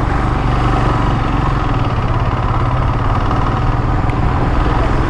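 Royal Enfield motorcycle engine running steadily on the move, picked up by a rider-worn Boya microphone, with a steady noise of wind and road over the engine.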